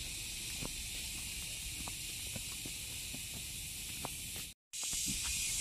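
Footsteps on a concrete road, heard as a few faint ticks under a steady high hiss and a low rumble of wind on the microphone. The sound cuts out for a moment near the end.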